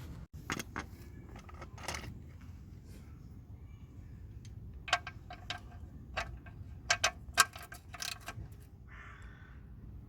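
Metal hand tools clinking and knocking under a car as a spanner is worked onto a stuck oil sump plug: about a dozen sharp clinks spread out, loudest around seven seconds in, and a short scrape just after nine seconds.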